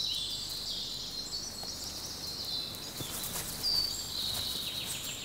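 Several small birds singing at once, with high trills, chirps and short falling whistles overlapping one another.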